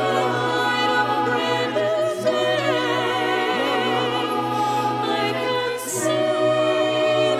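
Mixed choir of men and women singing sustained chords, joined by a flute playing a line with vibrato. Each singer was recorded separately at home and the parts were mixed together. About six seconds in, a sung 's' briefly hisses and a new chord begins.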